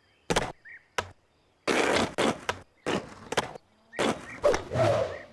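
Skateboard on a small ramp: two short clacks, then the wheels rolling in a few noisy runs broken by knocks of the board.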